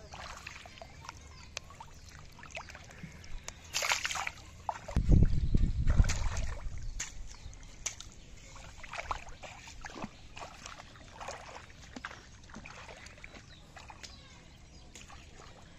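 Shallow muddy water sloshing and splashing as hands grope in it and feet wade through it. A loud low rumble about five seconds in lasts a second or so.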